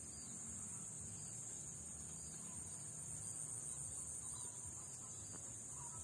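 A steady, high-pitched chorus of insects shrilling in a rice paddy, with a low rumble underneath.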